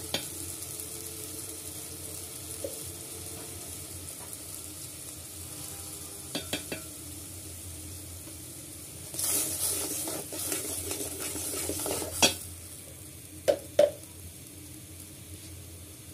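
Ground spices and onions sizzling steadily in hot oil in a metal pot. Past the middle a steel spatula stirs and scrapes for about three seconds, then knocks sharply against the pot a few times.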